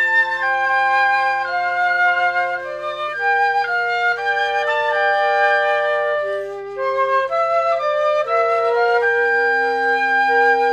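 A flute quartet playing in harmony: several flutes hold notes together and move to new notes every second or so.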